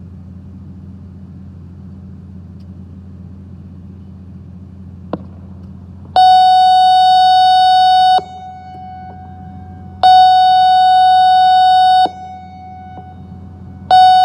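ASC I-Force electronic warning siren sounding loud steady tone blasts of about two seconds each, about two seconds apart, as the attention signal ahead of a spoken test message. Two full blasts sound about six and ten seconds in, and a third starts near the end. Before them there is only a low steady hum and a single click.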